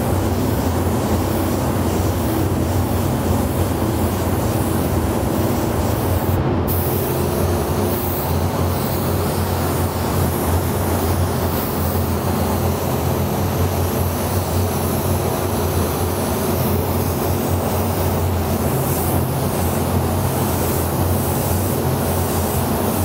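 A paint spray booth's ventilation runs with a steady low hum and rush of air, under the hiss of an Iwata LPH-80 gravity-feed spray gun laying down candy paint. The high hiss cuts out briefly about six and a half seconds in.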